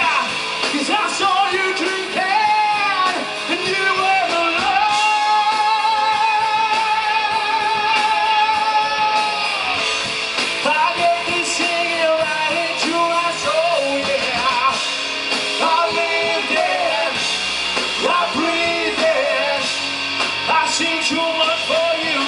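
Rock band playing live with guitar to the fore, including one long held, wavering note in the middle and bent notes around it.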